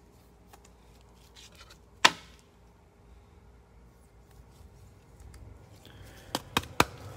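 A trading card being slipped into a clear plastic sleeve: light plastic rustling and small clicks, with one sharp click about two seconds in and three quick clicks near the end.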